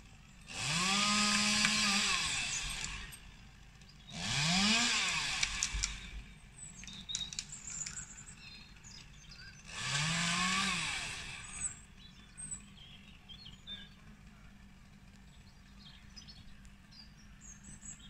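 Chainsaw revved three times: each burst rises in pitch, holds for a second or two at full speed, then drops back, with quieter gaps in between.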